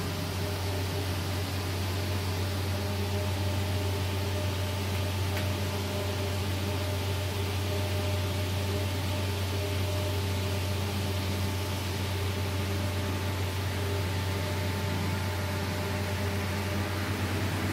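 Steady low machine hum with an even hiss and a few faint steady tones above it, unchanging throughout.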